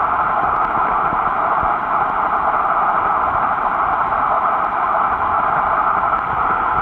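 Steady hiss of underwater ambient noise picked up by a submerged camera, strongest in the middle range and unchanging throughout.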